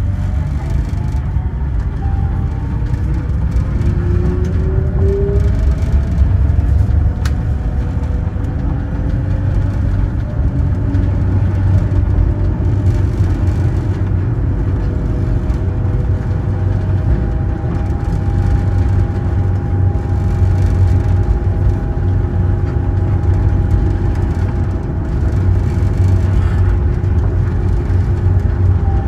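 Sengkang LRT train, a rubber-tyred Mitsubishi Crystal Mover, running on its guideway with a steady low rumble. Its motor whine climbs in pitch over the first ten seconds or so as the train picks up speed, then holds at a steady pitch while it cruises.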